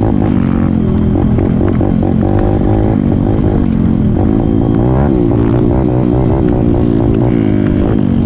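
Pit bike engine running hard as the bike is ridden across rough ground, heard from the rider's helmet camera. Its pitch keeps climbing and dropping as the throttle is opened and eased off.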